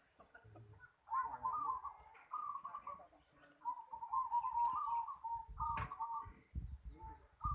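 Zebra dove (perkutut) cooing: several rhythmic cooing phrases in a row, pitched around 1 kHz, with a sharp click and a few dull low thumps near the end.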